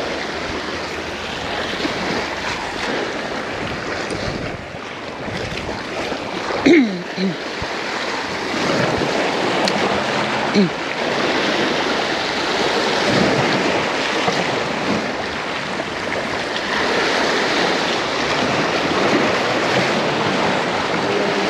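Ocean surf washing in steadily, with wind on the microphone.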